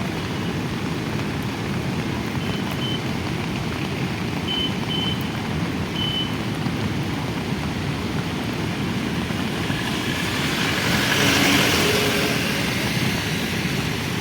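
Beas River in flash flood: a loud, steady roar of fast, heavy rushing water, swelling louder about ten seconds in.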